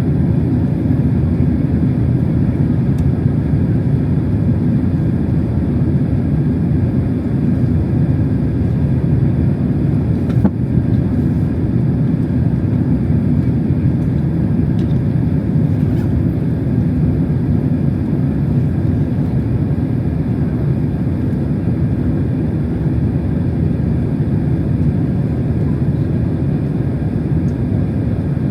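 Steady roar of cabin noise inside an ANA Boeing 767-300 airliner, a low, even rumble of engines and air that does not change, with one faint click about ten seconds in.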